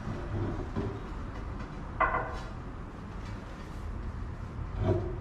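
Steady low rumble, with a short sharp knock about two seconds in and another near the end.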